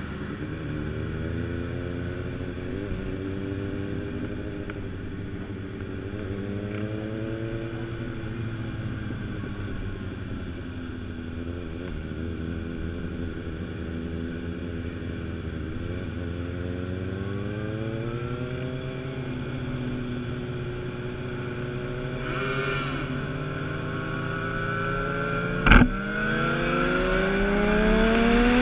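Motorcycle engine heard from the rider's seat, its revs rising and falling as it rides through the gears, then climbing steadily as it accelerates near the end. A sharp knock about 26 seconds in is the loudest moment.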